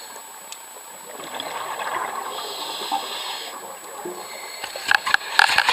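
Scuba diver's regulator breathing, heard underwater: a long hiss of inhalation through the middle, then a loud crackling rush of exhaled bubbles near the end.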